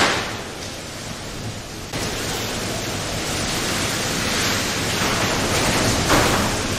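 Cyclone-force wind and driving heavy rain: a steady rushing noise that changes abruptly about two seconds in, with a stronger gust near the end.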